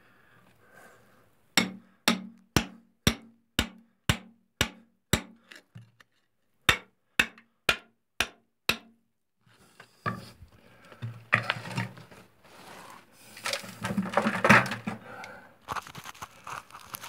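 Hammer blows on a steel chisel driven into brittle decomposing bedrock, about two sharp strikes a second: nine, a short pause, then five more. Then a stretch of irregular scraping and crumbling as the loosened rock is worked free.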